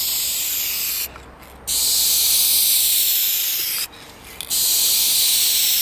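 Dupli-Color Perfect Match aerosol spray paint can hissing as paint is sprayed, in three passes with short breaks about a second in and about four seconds in.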